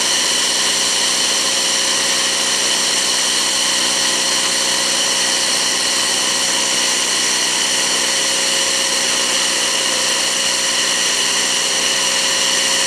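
Bark mulch blower running steadily, blowing bark mulch out through its flexible metal hose: a steady high whine over the hum of its engine.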